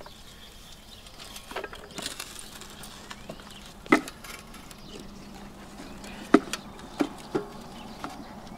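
Scattered sharp knocks and scrapes of a wooden board being worked under a boulder resting on a hand truck. The loudest knocks come about four and six seconds in, with a few smaller ones after.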